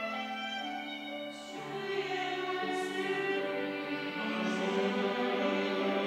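Church choir singing an anthem with instrumental accompaniment: held accompaniment notes at first, then the full choir comes in about a second and a half in and sings on.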